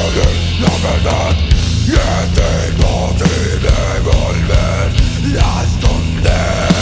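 Heavy rock band playing live in an instrumental passage with no singing: loud guitars and bass over a steady drum beat.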